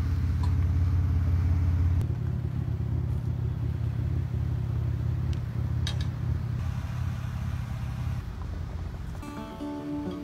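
A motor vehicle engine running with a steady low rumble, loudest in the first two seconds, then fading away about eight seconds in. Near the end, acoustic guitar strumming begins.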